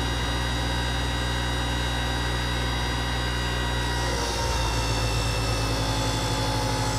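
Bench grinder's wire wheel running with a steady hum. About four seconds in, an old exhaust bolt is pressed against the spinning wire brush to clean its head, adding a scratchy hiss.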